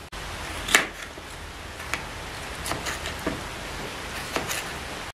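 Tin foil being handled as chopped food is packed into it: a handful of scattered sharp clicks and crinkles over a steady hiss.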